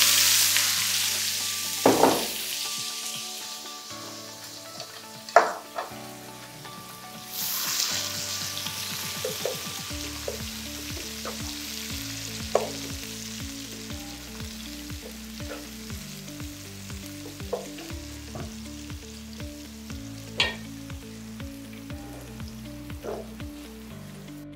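Sliced red onions dropped into very hot oil in a wok, sizzling loudly at first and dying down over a few seconds, then frying steadily as a wooden spatula stirs them, with a few sharp knocks of the spatula against the pan.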